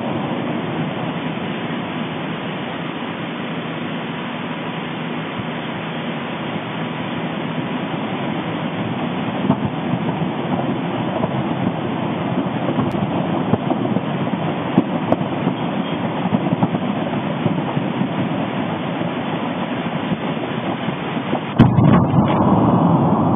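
Steady rushing rumble of Popocatépetl's explosive eruption as the ash column pours out, slowly growing louder. A sudden louder surge comes near the end.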